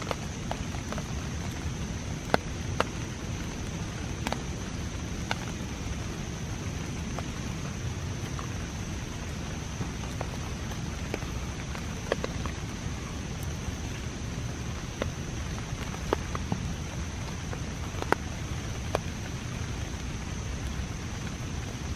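Steady light rain with a constant hiss, and now and then a single louder drop landing close by, about eight in all.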